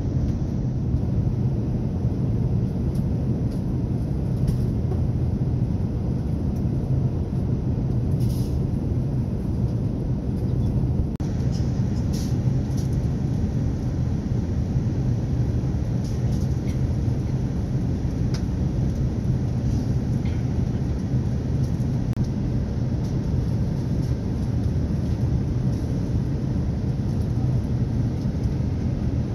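Steady low rumble of an Airbus A380 airliner at cruise, heard from inside the passenger cabin: engine and airflow noise, with a few faint clicks.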